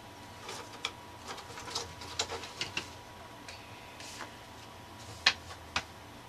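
Paper tags and cardstock being picked up and handled on a cutting mat: scattered light rustles and taps, with two sharper clicks about five seconds in.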